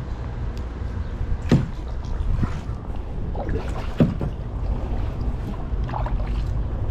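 Kayak paddle strokes in the water, with two louder splashing strokes about one and a half and four seconds in and smaller dips between, over a steady low rumble.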